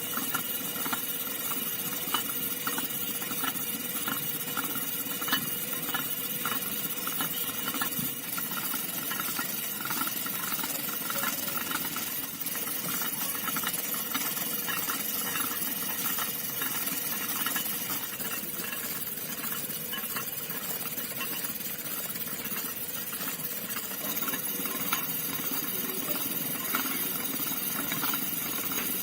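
Small electric motor of a homemade model tractor cutting machine running steadily with a whine, with a constant rattle of small clicks.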